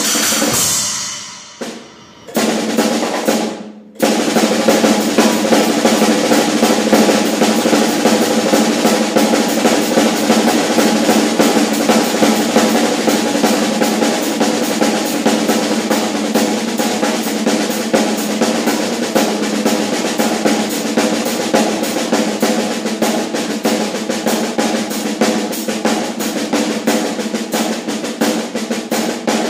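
Drum kit playing a fast paradiddle pattern (two single paradiddles and a double paradiddle) on the snare in 7/8, with the bass drum on the accents. Two hits ring out and fade, then the dense run of strokes starts about four seconds in and carries on.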